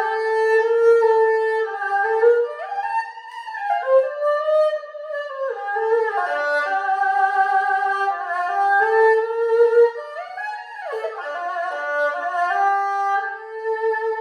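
Ebony-bodied erhu, a Chinese two-string bowed fiddle, playing a slow solo melody of held notes joined by smooth pitch slides, ending on a long held note.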